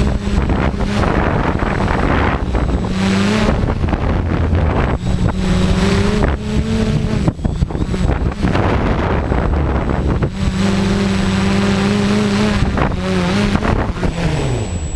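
FPV quadcopter's motors and propellers whining, the pitch coming and going and rising and falling with throttle, with a falling glide near the end. Wind buffets the microphone throughout.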